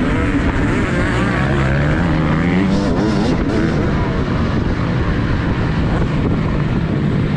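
TM Racing 250 motocross bike's engine running hard under racing throttle, its pitch rising and falling as the rider works the throttle and gears.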